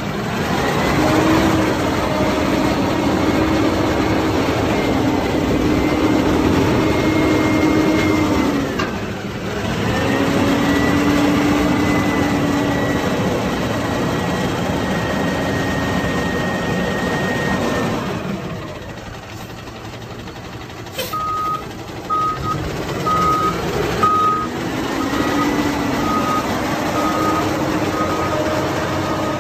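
Yard spotter truck's Cummins diesel engine running and revving up and down: it rises, falls back about nine seconds in, revs again, drops to a lower idle around eighteen seconds, and climbs again near the end. A reversing alarm beeps steadily from about two-thirds of the way in.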